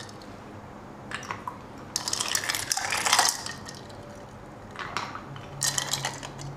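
Ice cubes clinking as they are added to a glass blender jar of milk and mango pieces, in several short bursts of clatter. The longest burst lasts about a second, starting about two seconds in.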